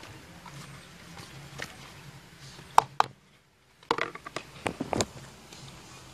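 Scattered sharp clicks and light knocks from handling chopped seasonings and a foam bowl tipped over a pot of coconut milk. The two loudest clicks come close together about three seconds in. The sound drops out for under a second, then more clicks and knocks follow.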